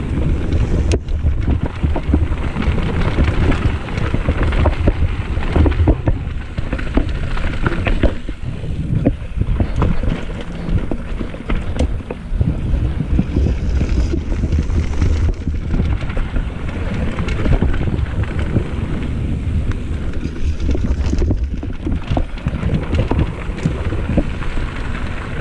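Wind buffeting the microphone of a mountain biker's camera while riding dirt singletrack, with the bike's tyres and frame rattling and clicking over bumps in the trail.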